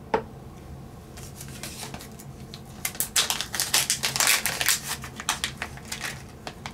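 Hands handling small transmission parts and their plastic packaging: a sharp click at the start, then scattered clicks and crinkling, busiest from about three seconds in.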